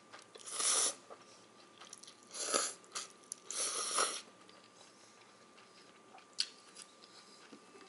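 Cold buckwheat soba noodles slurped up from a bowl of dipping sauce: three loud, airy slurps in the first four seconds, then quieter chewing with a single sharp click.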